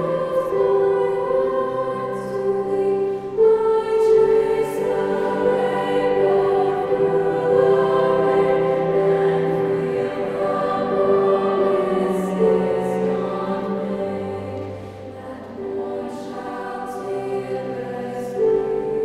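Girls' choir singing a slow sacred choral piece in several parts, with long held notes, and low cello notes beneath. The singing grows quieter over the last few seconds.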